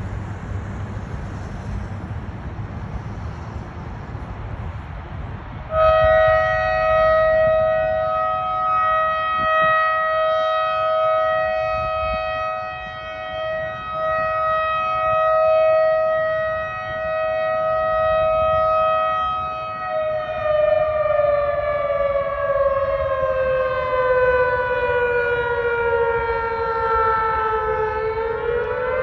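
Outdoor warning siren starting abruptly about six seconds in at a steady high pitch, its loudness swelling and fading. Past the middle it slowly falls in pitch, then begins rising again near the end.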